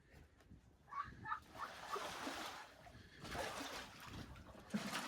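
Water from a garden hose splashing in uneven bursts, with a couple of short waterfowl calls about a second in.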